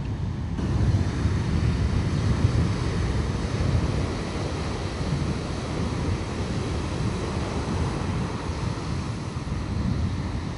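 Sea surf with wind buffeting the microphone: a steady rushing noise, heaviest in the low end, that fills out about half a second in.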